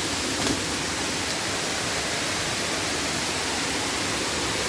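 Steady rush of a waterfall and river pouring over rocks, with a brief knock about half a second in.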